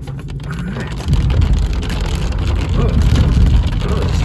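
Heard from inside a car driving in pouring rain: a steady low road and engine rumble with the hiss of tyres on wet pavement and rain on the windshield, getting louder about a second in.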